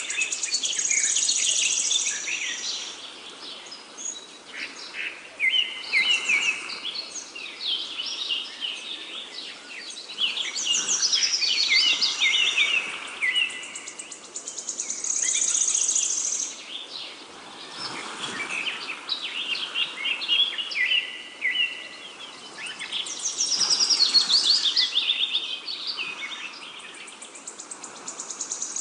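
Birds singing: overlapping phrases of quick chirps and trills that come in bursts every few seconds.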